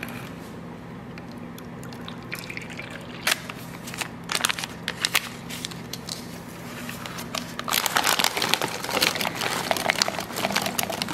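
Smoothie ingredients going into a plastic blender cup: scattered taps and a pour of milk and powder in the first half, then, over the last three seconds and loudest, frozen blueberries clattering into the cup from a crinkling plastic bag.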